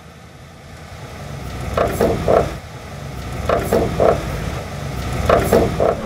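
Worn stabilizer (sway) bar bushings creaking as the car moves, in three short bursts of two or three creaks each, over a low rumble. The bushings are worn so that metal meets metal.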